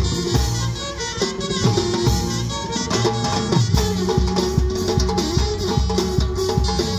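Live Uzbek karnay-surnay band music: a drum kit and snare drums beat a steady, driving rhythm under a sustained melody line.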